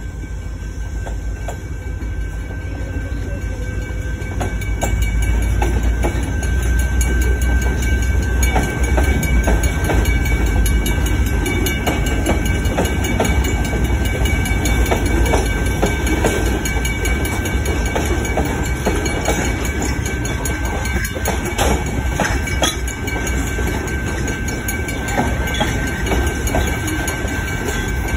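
Freight cars of a CSX train rolling past: a heavy low rumble with the clatter of wheels over the rails, growing louder about four seconds in. A steady high tone sits over it.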